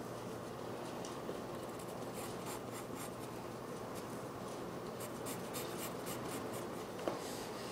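Pencil drawing on paper: a run of short scratchy strokes, denser in the second half, with a light tap near the end, over a steady low hum.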